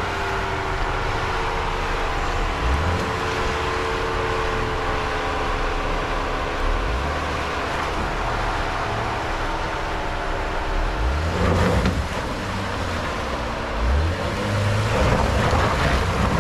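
Jeep Gladiator pickup's engine running at low revs as it crawls up a muddy, rutted dirt trail, a steady engine tone that rises and falls slightly in pitch. A few louder low rumbles come about eleven and fourteen seconds in.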